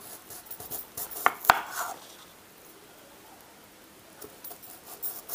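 Kitchen knife cutting through a red onion onto a wooden chopping board: a few sharp knocks of the blade on the board, then a quiet pause, then a few lighter knocks near the end.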